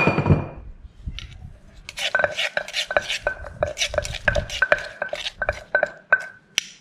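A wooden pestle pounds in a clay som tam mortar while a metal spoon turns the mix, in the pok-pok rhythm of making papaya salad dressing. From about two seconds in the strokes come about three a second, each a sharp knock with a short ring from the mortar.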